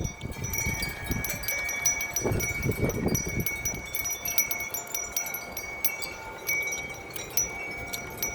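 Metal wind chimes ringing in a gust of wind: many quick, light strikes over one lingering ring. A brief rumble of wind on the microphone comes in about two seconds in.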